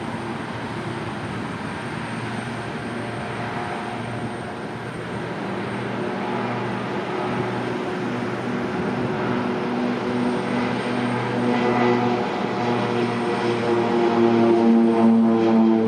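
1981 Beech C-99 Airliner's twin PT6A turboprops at takeoff power: a steady propeller drone with a slow throb, growing louder as the plane rolls down the runway and lifts off near the end.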